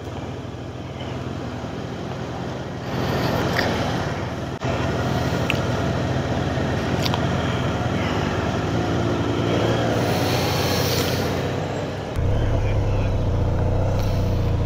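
Riding noise of a moving motorcycle: engine and wind rush on the bike-mounted microphone. It gets louder about three seconds in, and a deeper engine drone comes up near the end.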